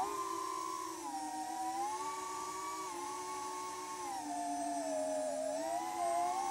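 iFlight MegaBee FPV quadcopter's brushless motors and propellers whining in flight. Several tones slide down and up together as the throttle changes, dipping about a second in and again around four to five seconds before rising near the end.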